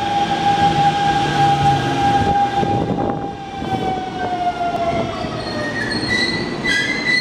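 Hanshin electric commuter train pulling into the platform and braking, its motor whine sliding down in pitch as it slows, with higher-pitched whining tones near the end as it comes to a stop.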